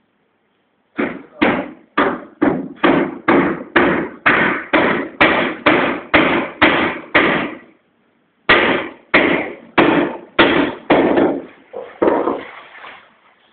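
Hammer blows on the teakwood roof framing at a steady pace of about two and a half a second. About sixteen strikes are followed by a second's pause, then about eight more that trail off.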